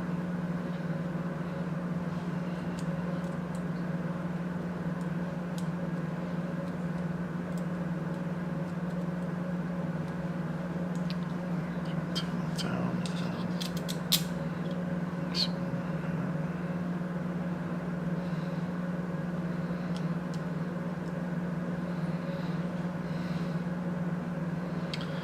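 A steady background hum, with a few light clicks about halfway through from small screws being handled and fitted through a mounting plate.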